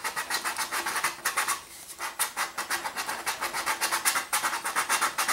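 Coarse sandpaper scraped in quick back-and-forth strokes over the plastic shoulder of a model rocket nose cone, with a short pause about two seconds in. The plastic is being roughed up to give super glue grooves to grip.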